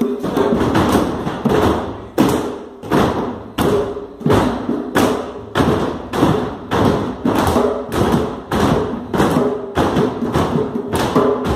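Drum beats in a steady, even rhythm, about three strikes every two seconds, over a faint held tone.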